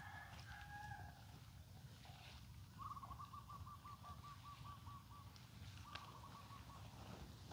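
Near silence with faint distant bird calls: a thin held call at the start, then a quick run of repeated notes, about eight a second, some three seconds in, and a short run again about six seconds in.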